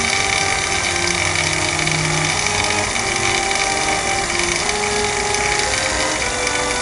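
A small motor running steadily, an even mechanical hum with a thin high tone over it.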